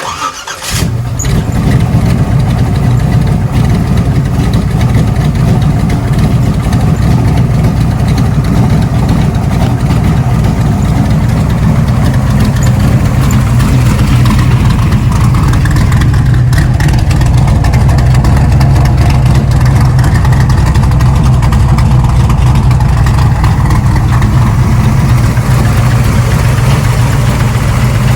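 Street/race truck's engine starting and catching, then idling loudly and steadily.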